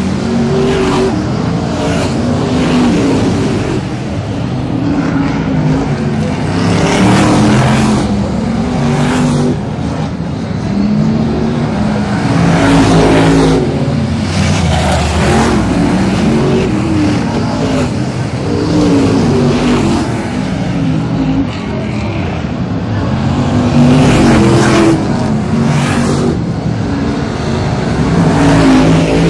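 Pack of BriSCA F1 stock cars with V8 engines racing round the oval, engine notes rising and falling as the drivers accelerate and lift, with louder surges each time cars pass close by.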